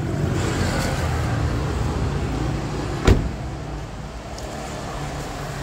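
Car engine idling with a steady low hum, and a single sharp thump about three seconds in.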